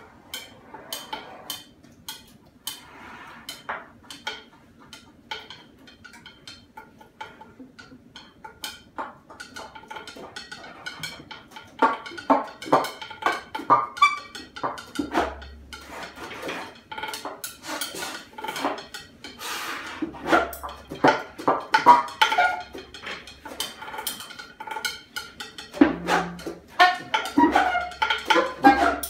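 Free improvisation for percussion and alto saxophone: many small clicks, taps and rattles from the percussion mixed with short saxophone sounds, getting louder and busier about halfway through.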